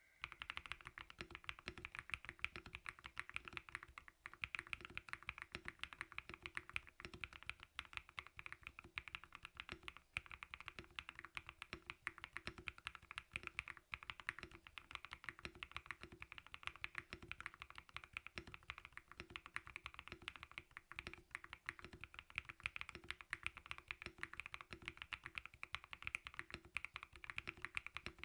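Continuous fast typing on a CIY GAS67 mechanical keyboard with lubed Akko CS Silver POM linear switches and lubed stock stabilizers, a rapid stream of keystrokes with brief pauses between bursts.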